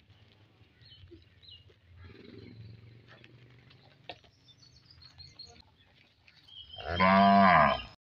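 A cow moos once, loudly, near the end: a single long call that bends in pitch and cuts off abruptly.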